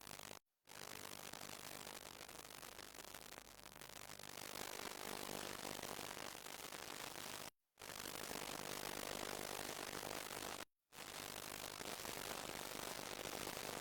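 Faint steady hiss of line noise with a low electrical hum, cutting out to dead silence three times for a fraction of a second.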